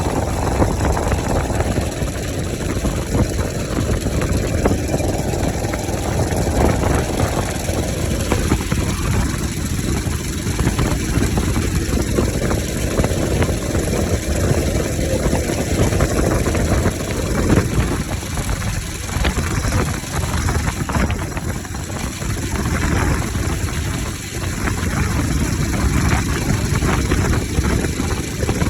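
Bajaj Pulsar RS 200 single-cylinder engine running with its air filter removed, its speed rising and falling several times.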